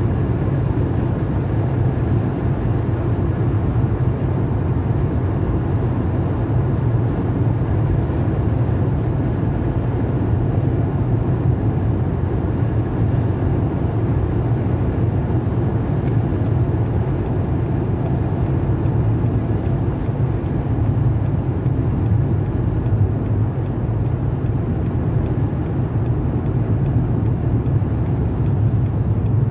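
Steady low rumble of a car driving at road speed, heard from inside the cabin: road and engine noise with no change in pace.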